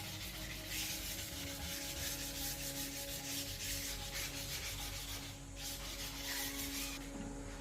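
Sanding on a part of the old truck: a dense abrasive scratching over a steady low hum. The scratching dips briefly about five and a half seconds in and drops away near the end.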